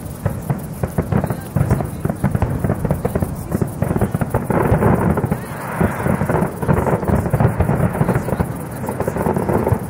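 Fireworks display: a dense barrage of shell bursts whose booms run together into a rolling rumble, with rapid crackling over them. It is heaviest around the middle.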